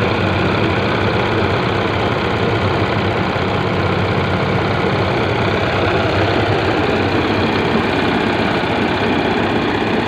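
Small single-cylinder engine running steadily, belt-driving a rice threshing machine.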